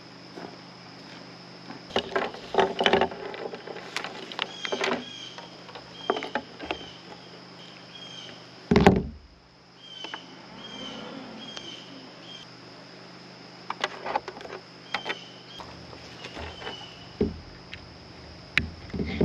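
Scattered knocks and clatter of objects being handled, with one heavy thump about nine seconds in. Short bird chirps come several times, over a steady high-pitched insect buzz and a faint low hum.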